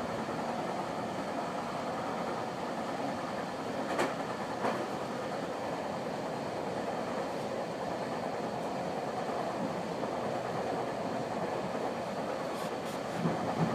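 Steady ride noise inside a moving GO Transit commuter train coach: an even rumble of wheels on rails, with two sharp clicks about four seconds in, under a second apart, and a couple of low knocks near the end.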